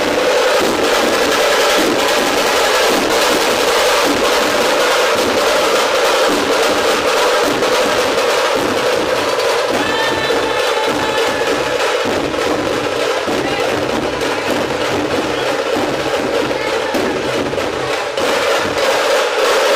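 A group of large barrel dhol drums beaten together in a loud, continuous, dense rhythm.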